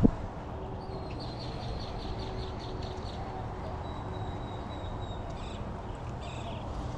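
Small birds calling: a quick run of about ten high repeated notes, then a long thin whistle, then a few short notes near the end. Under them runs a steady low rumble of wind on the microphone.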